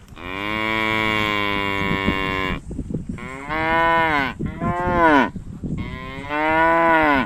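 Cattle mooing: four loud moos, the first held at a level pitch for about two and a half seconds, the next three shorter and each dropping in pitch at the end.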